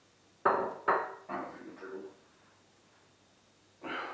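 A man's heavy gasps and breaths right after chugging a litre of beer. Two sharp, loud gasps come about half a second apart near the start, a few shorter breaths follow, and another comes near the end.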